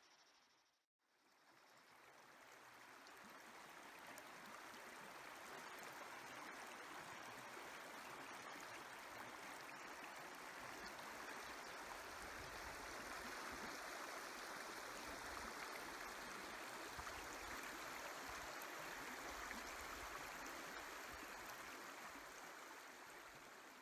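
Shallow river water running and rippling over rocks, a soft steady rush that fades in about a second in, swells through the middle and fades away near the end.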